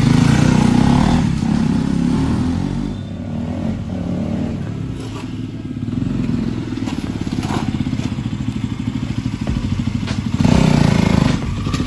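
KTM Duke 200's single-cylinder engine running as the motorcycle pulls away, rides off and comes back. It is loudest as it sets off, fainter in the middle while the bike is farther away, and louder again near the end.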